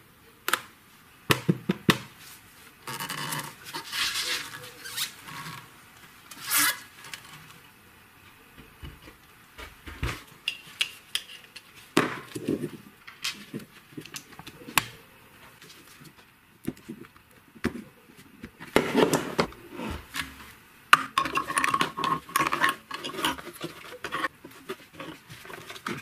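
Irregular clinks, knocks and scrapes of metal parts and tools being handled, with no motor running.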